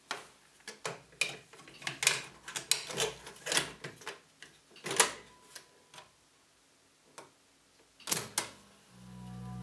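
A cassette tape being handled and loaded into a Palladium stereo cassette recorder: a run of plastic clicks and clatters as the tape goes in and the door is shut. About eight seconds in, a piano-key button is pressed with a sharp double clunk, and just before the end playback starts with low steady tones.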